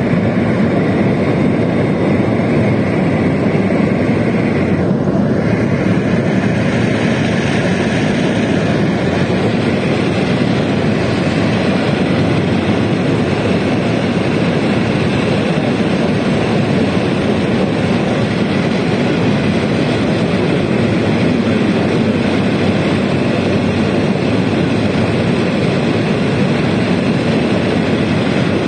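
Steady engine and airflow noise inside the cabin of a Beriev Be-200 amphibious water bomber in flight, its twin turbofan engines running.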